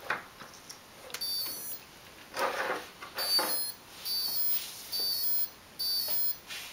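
Mystery 60A brushless speed controller beeping through its connected brushless motor after the battery is plugged in with the throttle at full: a short run of high tones about a second in, then four beeps of about half a second each, spaced about a second apart. These are the tones of the controller going into its programming menu. A short handling noise comes about two and a half seconds in.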